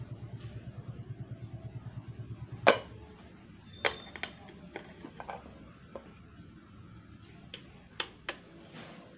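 A glass lid is set on a ceramic slow-cooker pot with a sharp clack, followed by lighter knocks and clicks from the lid and a wooden stirring stick. Near the end, the cooker's control knob clicks as it is turned. For the first few seconds a low, fast rhythmic pulsing runs underneath and stops as the lid goes on.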